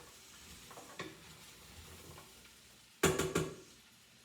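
Vegetables being stirred in a sizzling pan, with a light sizzle underneath. A single knock about a second in and a louder cluster of sharp clacks about three seconds in.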